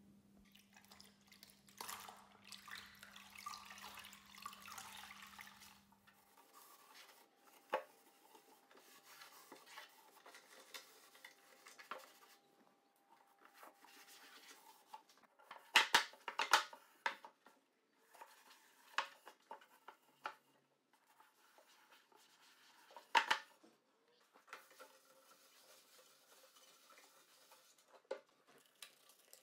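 Bathroom items such as bottles and containers being handled, set down and knocked together, with the loudest clatter about halfway through and again later. A low hum and a brief hiss run during the first few seconds.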